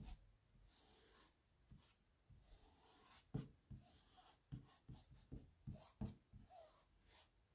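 Fingers rubbing and pressing a sticky screen-printing transfer down onto a board to smooth out air bubbles: faint, irregular short rubbing strokes and light taps.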